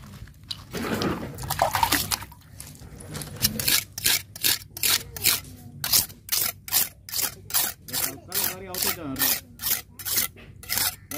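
Rhythmic wet scrubbing strokes, about three a second, that start a few seconds in: hand-scrubbing during the cleaning of wallago catfish.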